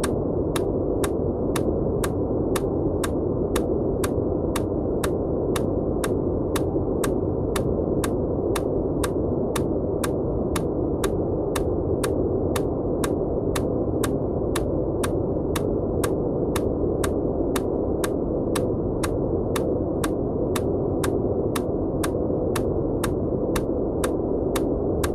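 Steady white noise, muffled and low in pitch, with a sharp tick repeating evenly about twice a second: the pulses of an EMDR bilateral stimulation track.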